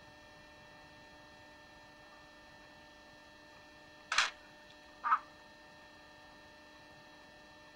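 A budgerigar gives two short chirps, about four and five seconds in, over a faint steady electrical hum.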